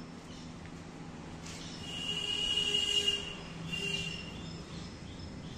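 A high-pitched squeal, held steady for about two seconds and then repeated briefly, over steady outdoor background noise with faint bird chirps.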